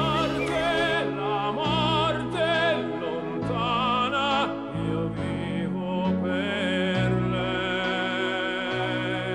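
Background music: an operatic ballad, a sung melody with wide vibrato over orchestral backing and a bass line moving under it.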